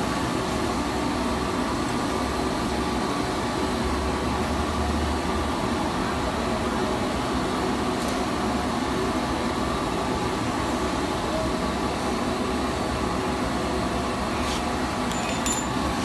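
Steady mechanical hum with several held tones and no rhythm, then a short sharp click near the end.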